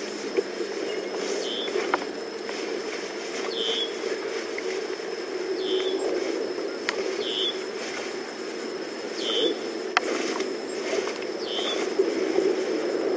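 A high, short chirp from a small animal repeats about every two seconds over a steady low background noise. A few sharp clicks and some rustling come from a nylon rain suit jacket being taken off and handled.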